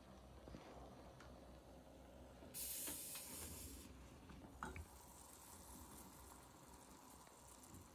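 Water bubbling faintly in a cast-iron tetsubin kettle on a wood stove top, with a loud sizzling hiss lasting about a second a third of the way in, then a short metal clink as the kettle is handled.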